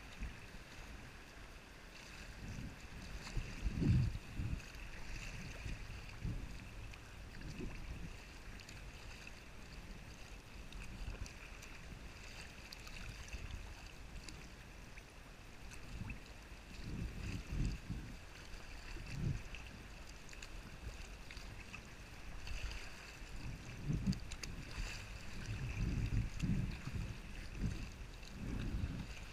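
Sea kayak moving through choppy water: paddle strokes and water splashing and lapping at the hull, with irregular gusts of wind buffeting the microphone.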